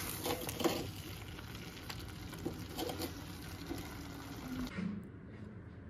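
Silicone spatula stirring hot, thick chicken gravy in an earthen clay handi: soft scrapes and squelches against the pot over a steady hiss. It stops abruptly about four and a half seconds in.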